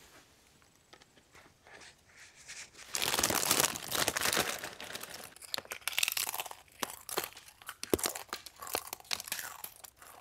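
Close-up crunching and chewing of a crisp chip, starting about three seconds in as a dense crackle and continuing as a run of sharp cracks.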